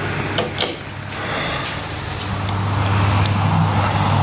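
A steady low machine hum that grows louder about halfway through, with a couple of sharp clicks about half a second in as a toilet cubicle door is opened.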